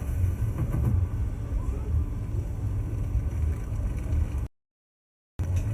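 A steady low rumble with no music or voices, broken by a brief dropout to total silence about three quarters of the way through.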